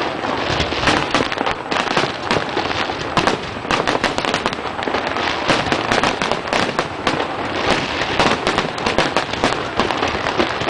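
Fireworks display going off: a dense, continuous barrage of sharp bangs and crackling.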